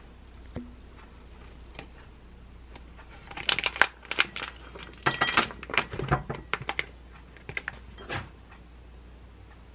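Plastic food pouch crinkling and rustling in bursts as it is handled, opened and emptied into a bowl.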